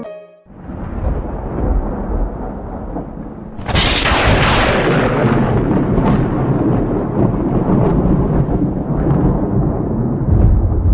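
Thunder sound effect: a long rolling rumble with a loud crack of thunder about four seconds in.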